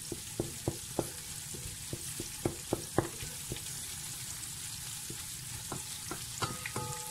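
Butter-and-flour roux sizzling in a metal pot as a spatula stirs it, cooking toward golden brown for gravy. Sharp clicks and scrapes of the spatula against the pot come often in the first three seconds, then more sparsely.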